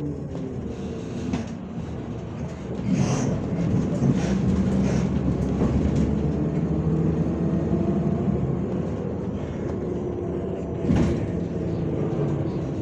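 Interior sound of a MAZ-105 articulated city bus under way: its diesel engine runs with the engine note dropping early on and slowly climbing later, over road noise. The body knocks and rattles sharply several times, about three seconds in and again near eleven seconds.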